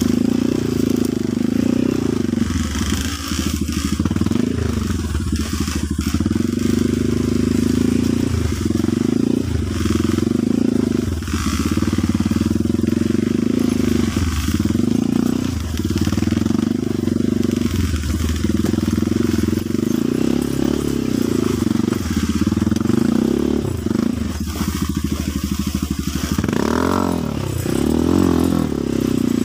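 Dirt bike engine running under way along a rough trail, its pitch dipping and rising again and again with the throttle. Near the end there is a short rev that climbs and falls.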